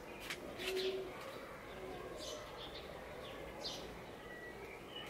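A dove cooing softly, a short low note twice, with small birds chirping now and then. A few light flaps and rustles of a sheet being shaken out and hung on a clothes airer come in the first second.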